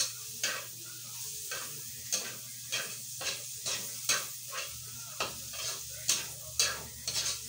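Diced pork fat sizzling in a wok as it renders its fat, while a metal slotted spatula scrapes and taps against the pan about twice a second as it is stirred.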